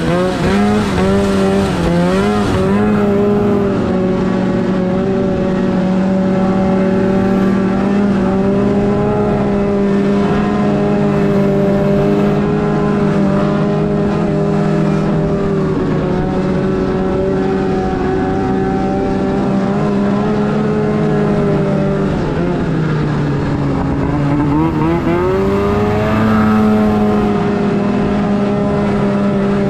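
Snowmobile engine running at a steady cruising speed on the trail, heard close up from the rider's helmet. About three quarters of the way through, it eases off and its pitch drops, then it speeds back up.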